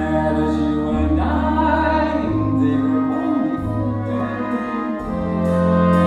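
Orchestral music with singing, held notes changing about every second.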